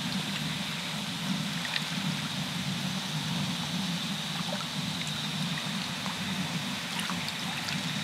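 Shallow water trickling and lapping over the edge of a tidal mudflat in a steady wash, with a few faint ticks of drips.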